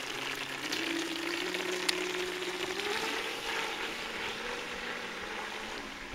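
Battery-powered RC speedboat running fast across open water: a steady hiss of spray off the hull with a motor whine that rises in pitch over the first three seconds, then holds. One brief sharp click about two seconds in.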